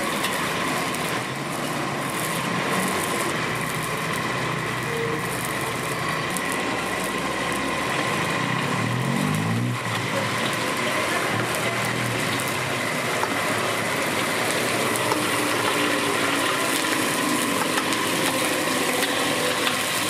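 Shrimp sizzling and crackling in hot oil in a steel wok, with a metal spatula moving in the pan.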